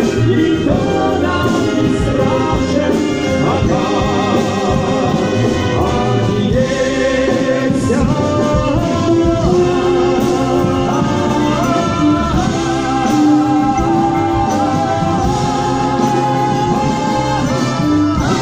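Massed brass bands playing together, with singing voices carried over the band.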